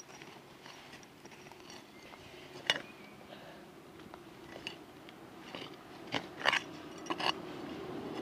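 Hand digging trowel chopping and scraping into soil, crunching through dirt, with several sharp knocks as the blade strikes something hard: one about three seconds in and three in quick succession near the end.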